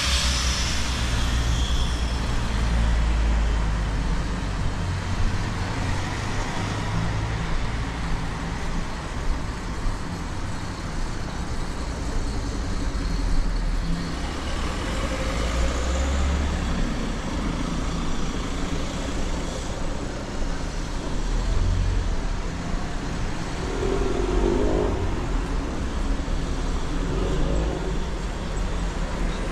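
Road traffic passing on a city street: cars' engines and tyres making a continuous rumble.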